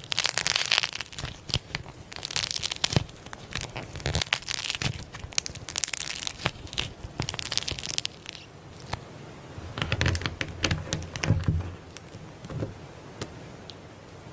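Slime being squished and stretched by hand, giving a run of crackling, popping and crinkling sounds with soft squelches in bursts.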